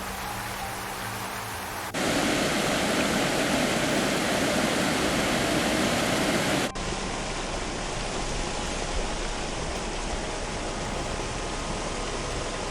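Rushing floodwater: a steady rush of water noise that changes abruptly twice, getting louder about two seconds in and dropping back near seven seconds in.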